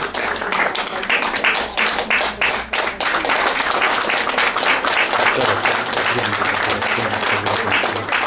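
Audience applauding, a dense crowd of hand claps.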